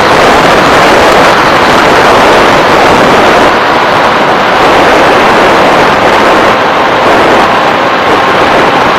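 Steady, loud rush of propeller and wind noise from an FPV model aircraft's onboard microphone in flight, with a faint motor whine underneath.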